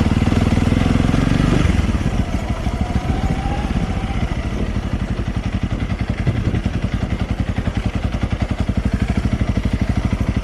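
Honda CRF300L's single-cylinder four-stroke engine running under throttle, then easing off to low revs about two seconds in and carrying on with an even pulse.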